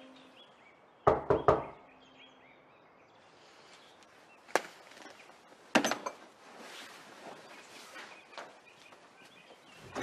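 Three quick knocks on a wooden hotel-room door about a second in, followed a few seconds later by two lighter clicks or thuds.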